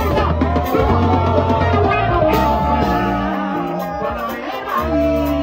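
Live band music over a PA: a male singer on microphone over electric bass and keyboard. The low bass drops out for a moment past the middle, then comes back.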